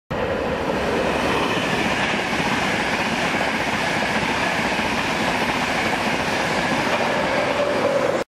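A Class 91-hauled InterCity 225 electric express passing at speed: a steady rushing roar of wheels on rail and air as the locomotive and coaches go by.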